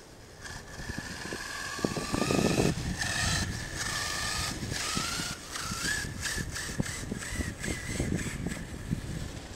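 Arrma Kraton 6S brushless electric RC monster truck driving on dirt: a thin motor and drivetrain whine that rises and falls with the throttle, over crunching and knocking from the tyres on the ground, loudest about two to three seconds in.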